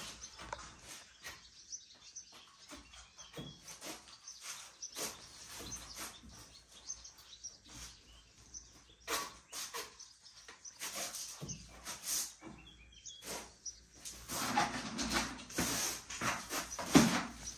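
Birds chirping faintly amid scattered clicks and knocks, with a louder stretch of knocking and rustling near the end.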